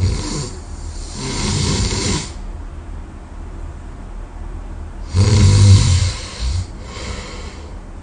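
A man snoring heavily in his sleep: two snoring breaths about four seconds apart, the second the loudest, with a low buzzing snore followed by a hissing breath.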